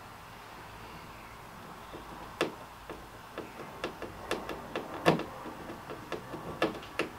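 Screwdriver driving a screw through a pad eye into a plastic kayak hull. From about two seconds in there is a run of sharp, uneven clicks, roughly two a second, as the screw is turned in.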